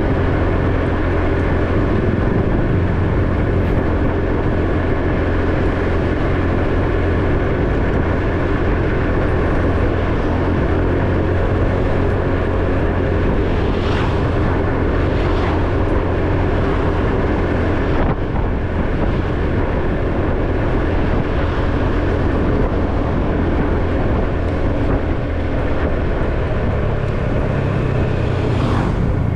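A motorcycle running steadily at road speed under the rider, its engine drone mixed with road noise, with two brief hissy swells about halfway through.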